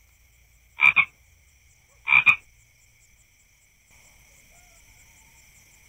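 A frog croaking: two short, sharp double-note calls about a second apart. A steady high insect trill starts about two thirds of the way in.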